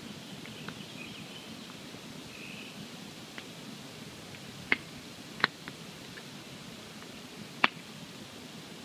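Wood campfire burning, with a steady low hiss and small scattered crackles. Three sharp, loud pops stand out in the second half, two of them less than a second apart.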